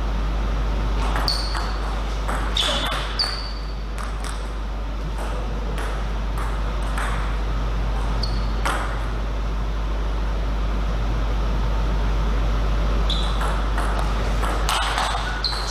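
Table tennis ball clicking off bats and table: a string of sharp hits, each with a brief high ring, irregularly spaced with a pause of a few seconds in the middle. A steady low hum runs underneath.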